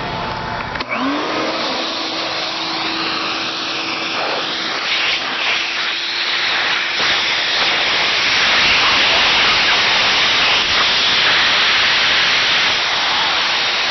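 Shop vac switched on about a second in, its motor rising in pitch as it spins up, then running steadily while sucking on a heat pump's condensate drain line. It grows louder about halfway through.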